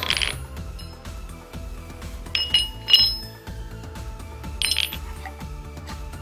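Steel hammer heads clinking with a bright ring as they are set down on a terrazzo floor and against each other. There is one clink at the start, three in quick succession around the middle, and one more a little later, over steady background music.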